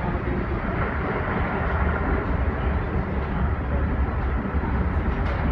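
Amtrak Acela train under way: a steady, unbroken rumble of the running train.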